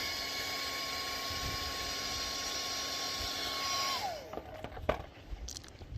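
Hand-held hair dryer running with a steady whine over rushing air, used to warm sticker glue in place of a heat gun. About four seconds in it is switched off and its motor winds down, the whine falling in pitch, followed by a few light knocks.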